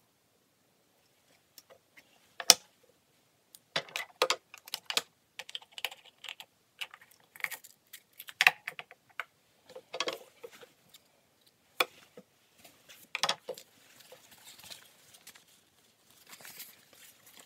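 Irregular clicks, taps and knocks of sewing tools, a metal seam gauge and scissors, being handled and set down on a wooden sewing-machine table. The loudest is a sharp click a couple of seconds in. Near the end comes a soft rustle of fabric being handled.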